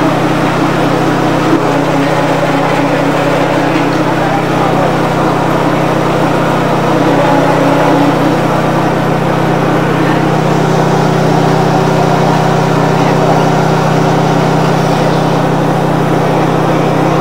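A small engine running steadily at an even pitch, with indistinct voices behind it.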